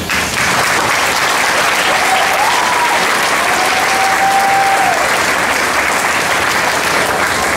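Audience applauding steadily after a spoken testimony, with a whistle rising and then holding for a few seconds in the middle.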